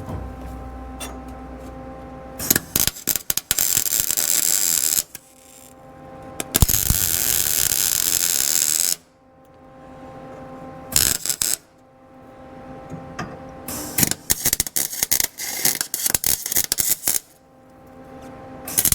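Welder arc crackling as steel conduit braces are welded in: two sustained welds of a couple of seconds each, a short one, then a string of quick tack welds near the end. A steady electrical hum runs between the welds.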